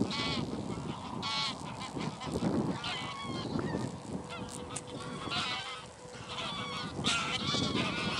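A flock of wild geese calling in flight as they come in over decoys: many overlapping honks in repeated bursts, with a brief lull a little past the middle.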